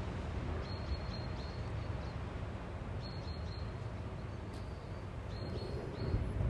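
Outdoor field-recording ambience: a steady rumbling wash of noise, with a few short, faint high peeps in small groups.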